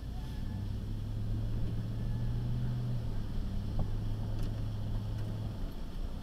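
Vehicle engine and road rumble heard from inside the cabin while driving: a steady low engine hum that dips slightly about three seconds in and fades out near the end.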